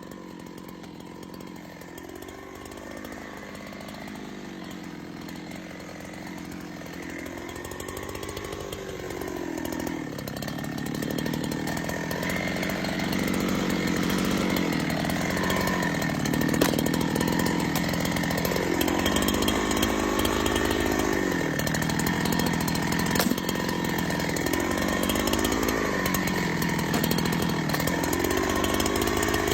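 Chainsaw engine running hard in a cut. Its pitch sags and recovers every two to three seconds as the chain bites into the wood and then frees up. It grows louder over the first dozen seconds, then stays steady.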